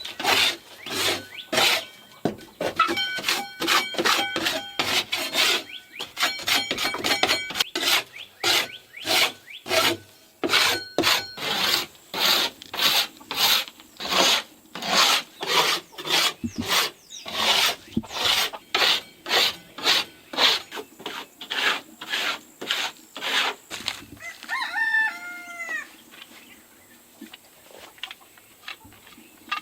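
An old paint scraper rasping over a plywood coop floor in quick, repeated strokes, about two a second, loosening dried chicken droppings and lime dust. The scraping stops near the end and a rooster crows once.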